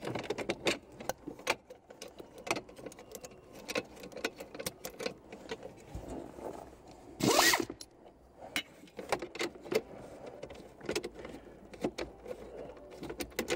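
A thin sheet-metal cover plate under a car's dashboard being worked loose and pulled out by hand: scattered clicks, taps and light scrapes, with one louder scraping rustle about seven seconds in.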